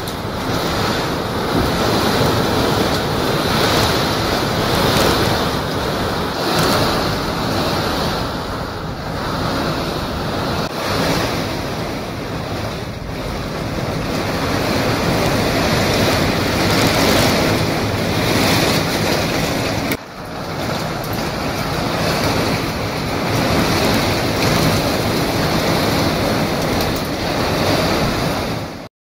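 Violent storm wind gusting through trees, with heavy rain and wind buffeting the microphone. The noise swells and eases every few seconds, drops briefly about two-thirds of the way through, and cuts off abruptly at the end.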